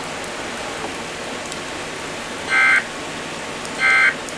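Two short bursts of Emergency Alert System SAME data tones, the harsh two-tone digital squawk, about 1.3 s apart over a steady radio hiss. Bursts this short are the end-of-message code that closes an alert.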